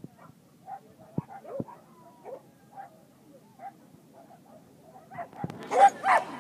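Dogs barking and yipping in short repeated calls, with two loud barks about six seconds in.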